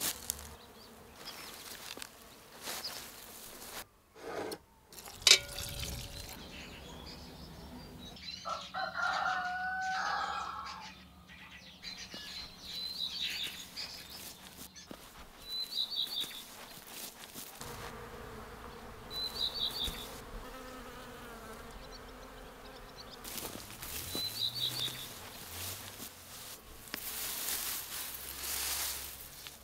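Spring meadow ambience near farmyards: a rooster crows once, about a third of the way in. A small bird gives short high chirps four times, and insects buzz. Grass and dandelion flowers rustle and snap as they are picked and handled, with a sharp click early on.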